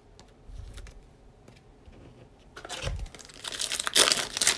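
A foil wrapper of a Prizm basketball card pack being torn open and crinkled by hand. It starts about halfway in and grows loudest near the end, after a quieter stretch with a few faint clicks of cards being handled.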